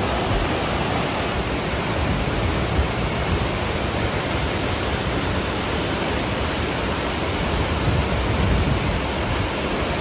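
Waterfall pouring: a steady, dense rush of falling water.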